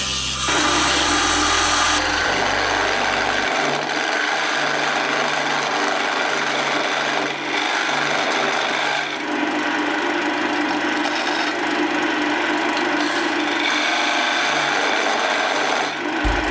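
Wood being worked on a wood lathe: a steady rasping, scraping sound of tool or abrasive on spinning wood, with the machine's hum underneath.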